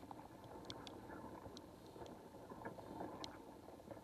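Muffled underwater ambience from a submerged camera: a steady, low rushing of moving water with scattered faint clicks.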